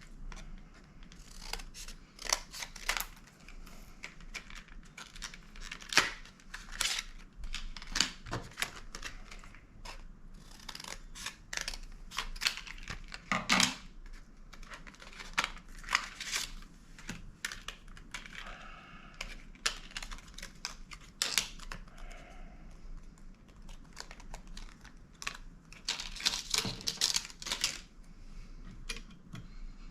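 Irregular small clicks, taps and light scrapes of hands handling hard plastic and metal parts inside a mini desktop PC while an NVMe SSD is swapped.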